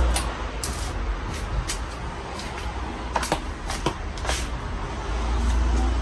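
Casablanca Panama ceiling fan running: a steady rush of moving air, with a low rumble of air buffeting the microphone that swells near the end, and scattered short clicks.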